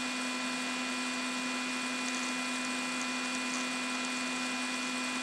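Steady electrical hum with a faint background hiss, unchanging throughout.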